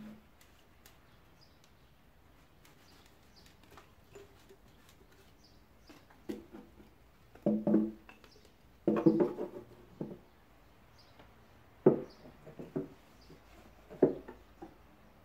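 A cloth wiping white shelves and objects being handled on them: a string of short rubs and knocks, sparse at first and closer together after about six seconds. Faint bird chirps sound now and then.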